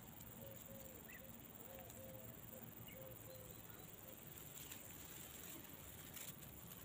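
Near silence: faint outdoor meadow ambience, a steady high hiss with a few faint short chirps scattered through it.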